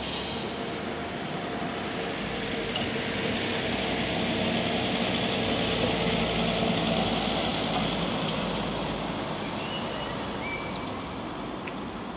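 Street traffic noise: a motor vehicle passes, its engine growing louder toward the middle and then fading.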